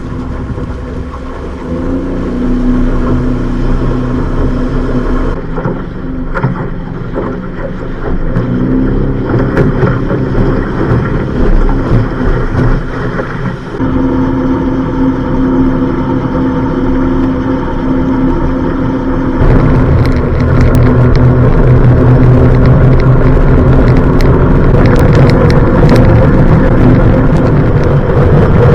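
Honda BF25 25 hp four-stroke outboard engine running on freshly rebuilt carburettors that are not yet tuned, at a high idle. Its note shifts a couple of times and it gets louder about two-thirds of the way through.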